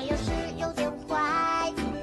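Light, playful background music with plucked notes.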